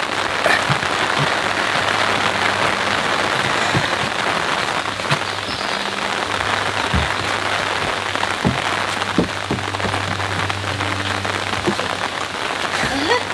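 Steady rain falling close to the microphone, most likely on the umbrella held over the phone, with a few short knocks as someone climbs into a wooden boat. A faint low hum runs underneath.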